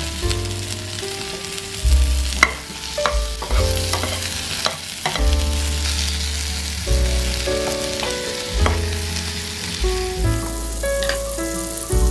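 Button mushrooms and cherry tomatoes sizzling steadily as they fry in oil in a nonstick pan, with a few sharp clicks between about two and five seconds in. Soft background music with a deep bass line plays under the sizzle.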